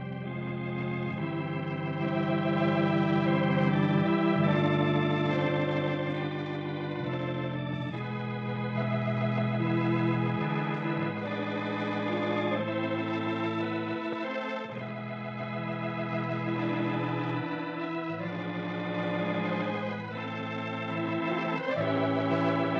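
Organ playing the program's closing music: slow, held chords that change every second or two.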